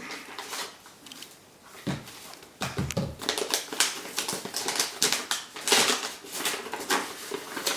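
A parcel being opened and unwrapped by hand: rustling and crinkling with quick clicks and taps. It is sparse at first and gets busy from about two and a half seconds in.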